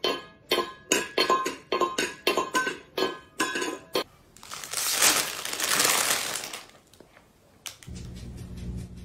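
Stainless steel pet bowl clinking and ringing as a cat paws and knocks it about on a hard floor, several sharp clinks a second for about four seconds. Then a rushing, scraping noise for about two seconds, and near the end background music with a steady low beat comes in.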